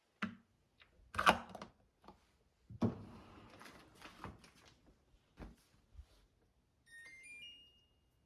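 Several separate knocks and clatters of hard objects being handled, the loudest about a second in, followed near the end by a short electronic chime of beeps rising step by step in pitch.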